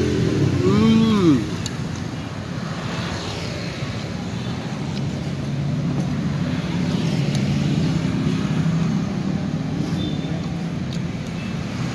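Street traffic: an engine briefly rising and falling in pitch about a second in, then a steady low rumble of passing cars and motorbikes that swells and eases.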